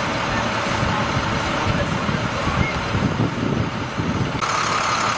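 Emergency vehicles idling at the roadside, with wind rumbling on the microphone. About four seconds in, the sound changes abruptly and a steady whine joins in.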